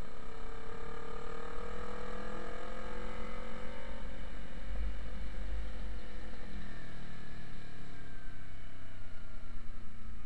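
Motorcycle engine pulling with its pitch rising gently for about four seconds, then easing off and sliding slowly lower, over a low rumble of wind.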